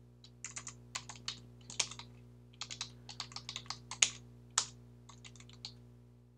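Typing on a computer keyboard: irregular runs of quick key clicks with brief pauses between them.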